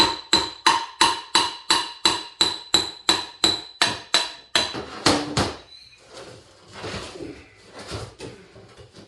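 Hammer blows on a steel hydraulic cylinder, a rapid, even run of about sixteen strikes at roughly three a second, each ringing metallically, to knock the piston and gland end loose. After about four and a half seconds the strikes give way to softer, irregular knocks.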